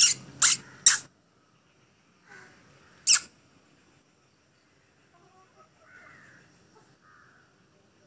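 Fruit bat giving sharp, shrill screeching squeaks: three quick ones in the first second, then one more about three seconds in, with a few faint chirps after.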